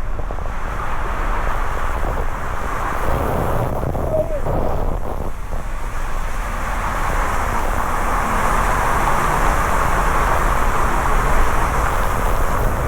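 Steady roar of a waterfall, the falling water growing slightly louder in the second half.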